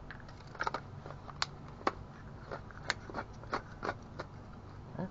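About a dozen sharp, irregularly spaced plastic clicks and taps from handling the Fulton N47 right-angle flashlight while its batteries are fitted and it is tried out.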